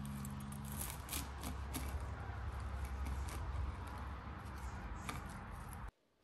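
Large kitchen knife sawing through a toasted grilled-cheese sandwich on a wooden cutting board: scratchy crunching of the crust with several sharp crackles, cutting off suddenly near the end.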